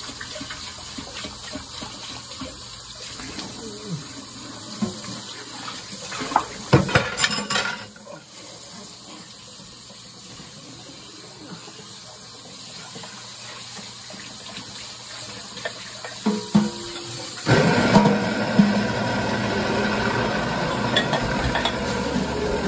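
Kitchen tap running into a sink, with a short run of clattering dishes about a third of the way in. Near the end the running sound gets much louder, with a steady hum under it.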